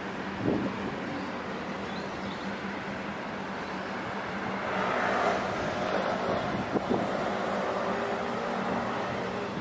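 City street ambience: a steady low hum, plausibly from the standing electric tram, under general traffic noise, which swells about halfway through as a vehicle passes, with a couple of faint knocks.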